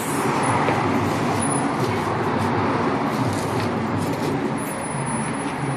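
Steady city street traffic noise.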